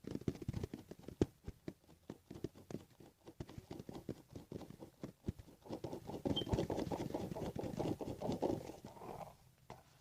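Small beads poured into a hand and moved about: a quick run of light clicks and patters that thickens about six seconds in.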